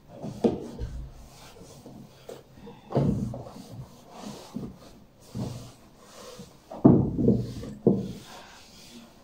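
A cloth rubbing and wiping across a painted bookshelf, broken by irregular knocks and bumps against the shelf, the loudest about three seconds in and again about seven seconds in.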